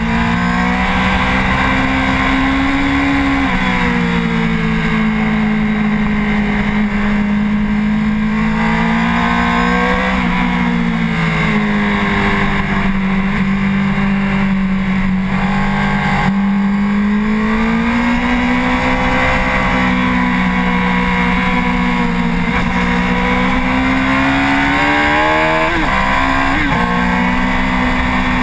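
Honda CBR1000RR's inline-four engine running hard at high revs at speed on a track, heard close from the fuel tank. The engine pitch eases and climbs again several times through the corners, with a quick drop and recovery near the end.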